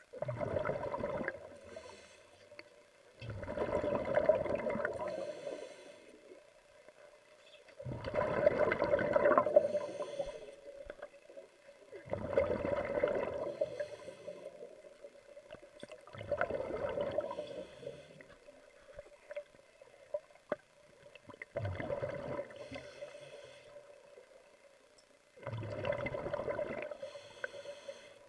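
Water sounds picked up underwater: rushing, bubbling bursts of a second or two that come about every four seconds, over a steady hum.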